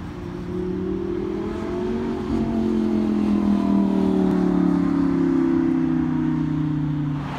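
An Audi R8's engine pulls past under acceleration. Its pitch climbs about two seconds in, and it is loudest midway before sinking slowly as the car goes by.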